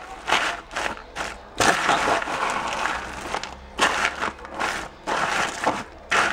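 Life cereal being stirred through a sticky chocolate and peanut butter coating in a plastic tub: irregular bursts of crunching and rustling as the pieces are turned over and scraped against the container, coming in short strokes with brief pauses between.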